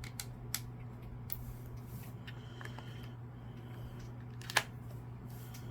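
Scattered small clicks and taps of small hand tools on an Xbox One controller's security screw, with one sharper click about four and a half seconds in, over a steady low hum.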